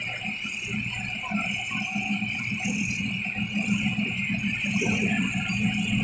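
A heavy military vehicle's engine running and growing gradually louder as it moves up, with a rattling clatter over a steady high hiss.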